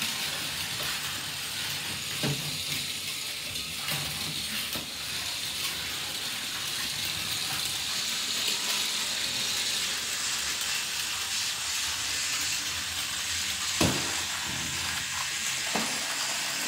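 Two robot toy snakes, a Clementoni SlitherBot and a Zuru Robo Alive, slithering over floor tiles on fresh batteries. Their motors and bodies give a steady hissing whir, with a few sharp knocks, the loudest about 14 seconds in.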